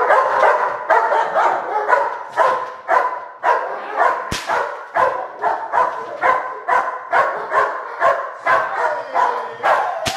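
German Shepherd barking steadily at about two barks a second while a decoy agitates him for bite work. A single sharp crack sounds about four seconds in.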